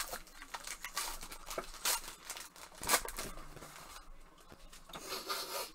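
Plastic foil card-pack wrapping crinkling and rustling as it is handled and pulled from a trading card box, with a few sharp ticks; the sharpest crackle comes about three seconds in.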